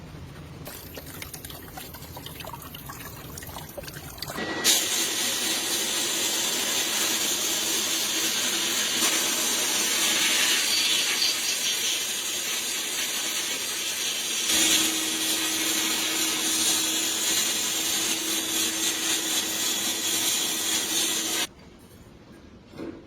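A steady, loud spraying hiss that starts abruptly about five seconds in and cuts off suddenly near the end. A faint steady hum joins it partway through.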